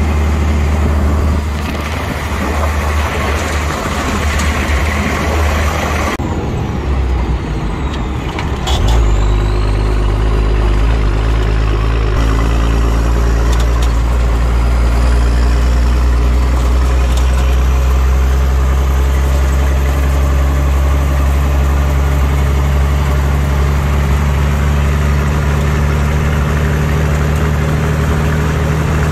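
Military truck's engine running while driving, heard from inside the open cab: a steady low drone that gets louder and heavier about nine seconds in.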